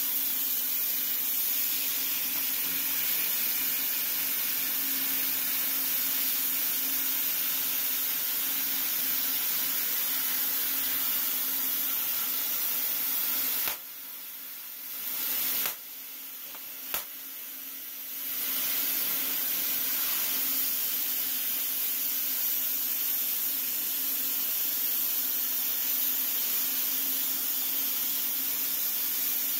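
CNC oxy-fuel cutting torch burning through steel plate: a steady hiss of the cutting jet. Around halfway through it drops quieter for about four seconds, with one sharp click in the middle of the dip, then comes back to full level.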